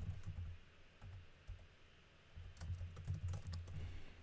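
Typing on a computer keyboard: a quick run of keystrokes, a lull of about two seconds with a stray tap or two, then another run of keystrokes.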